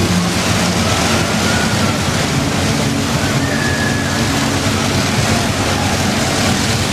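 Volvo FH pulling truck's diesel engine running steadily with the truck standing still after its pull, under a loud, steady rushing noise.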